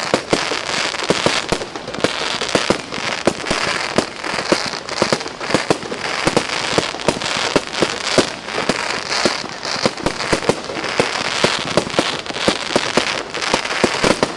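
Aerial fireworks display going off without pause: a rapid string of bangs, several a second, over a constant crackling hiss from the bursting shells.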